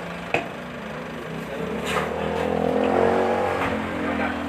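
A motor vehicle's engine running, rising in pitch and loudness to a peak about three seconds in and then easing off. There is a single sharp knock about a third of a second in.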